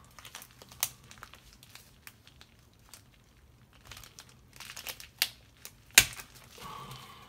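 Plastic comic-book sleeve crinkling and crackling as a bagged comic is handled, in scattered sharp crackles with the loudest about six seconds in.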